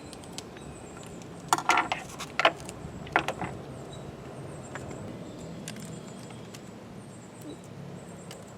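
Scissors clicking and snipping a few times, cutting open a glitter packet: a cluster of sharp snips between about one and a half and three and a half seconds in, then only low background.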